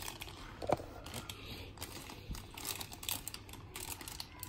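Paper and plastic toy packaging being handled, with light crinkling and scattered small clicks and taps.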